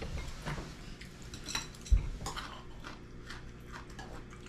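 Chopsticks and spoons clicking against ceramic and wooden bowls as people eat, a scatter of short light clicks, with one louder dull knock about two seconds in.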